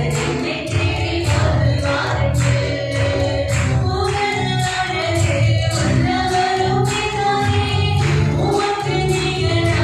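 Christian worship song: a choir singing over a steady drum beat and bass.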